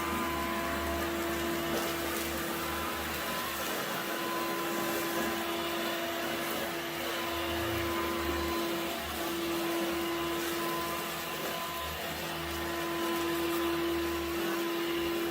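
Bosch Readyy'y Serie 2 20V cordless stick vacuum running steadily on carpet, its motor giving an even whine that dips briefly twice.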